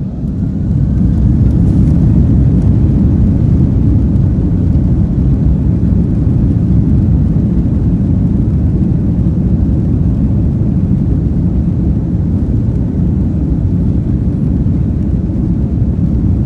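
Airbus A330-200 jet engines at takeoff power during the takeoff roll: a loud, steady low rumble that swells about a second in and then holds.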